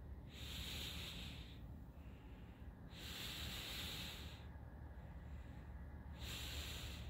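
Person breathing close to the microphone: three slow, hissy breaths about three seconds apart, over a faint steady low rumble.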